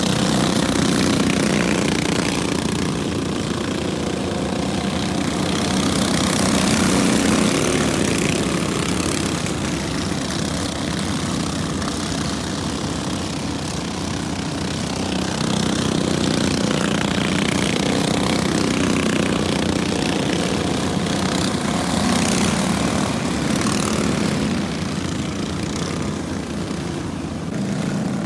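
Small engine of a junior sprint car buzzing steadily as it laps a dirt oval, growing louder and fainter as the car comes round.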